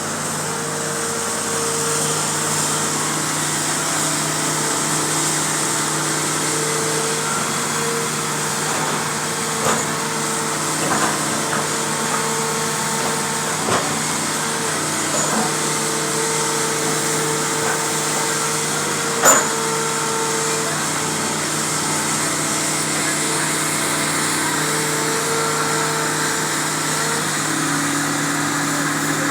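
Hitachi excavator's diesel engine running steadily at work, with a higher tone that comes and goes and a few sharp knocks, the loudest about two-thirds of the way through.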